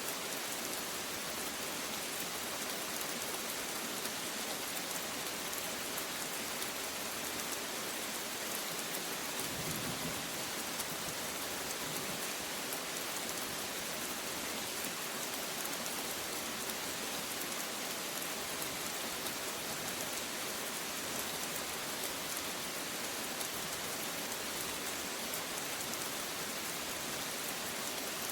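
Steady rain falling, an even hiss of countless drops with no letup.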